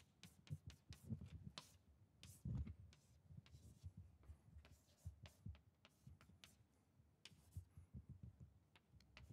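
Chalk writing on a blackboard: faint, irregular taps and short scratches as the chalk strikes and drags across the board.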